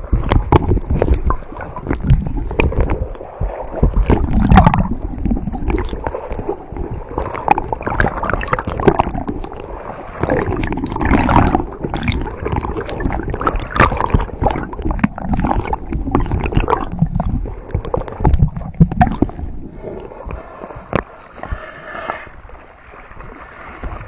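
Seawater sloshing and gurgling around a camera floating at the surface, its microphone dipping in and out of the water, with irregular splashes.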